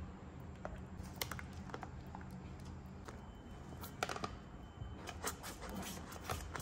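Silicone spatula scraping and tapping against the side of a ceramic bowl while folding batter, a series of irregular light clicks and scrapes with wet squelches, the loudest about four seconds in. A faint steady low hum underneath.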